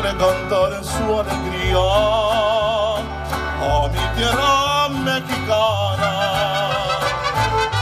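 Mariachi band playing live, an instrumental passage: a melody with strong vibrato over strummed guitars and a deep bass line that shifts from note to note.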